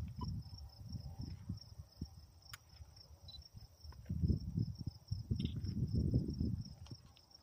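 Wind buffeting the microphone in irregular low gusts, loudest about four and six seconds in, over steady high insect chirping that pulses several times a second.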